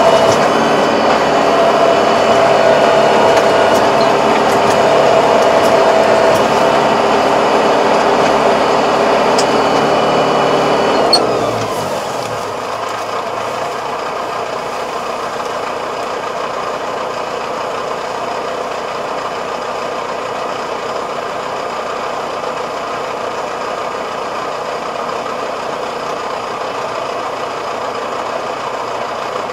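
Tractor engine running at high revs, then about eleven seconds in the revs fall with a short click and the engine settles to a steady, quieter idle.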